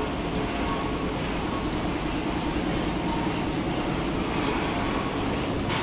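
Large stationary engine running steadily, turning its spoked flywheel and belt drive: a continuous mechanical rumble with a steady hum.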